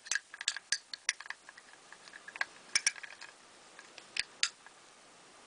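Small hard plastic clicks and clacks of a vintage Kenner Power Droid action figure handled in the fingers, its legs clacking. There is a quick run of clicks in the first second, then a few scattered ones.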